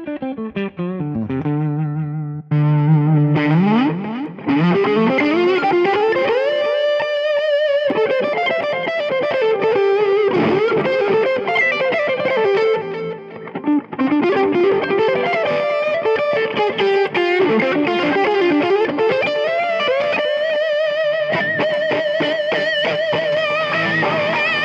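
Electric guitar played through a Fractal Audio FM9 amp-modeller preset with a distorted tone. It plays a lead line that slides down in the first second, rests on a low note, then slides up into long held notes with glides between them.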